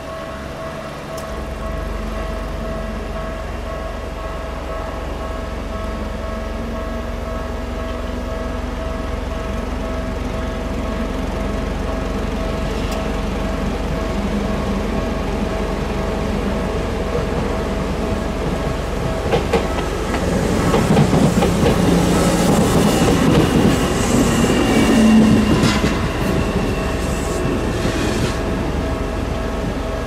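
Japanese level-crossing alarm ringing steadily. A train passes over the crossing, loudest from about twenty to twenty-six seconds in, with its wheels clicking over the rails.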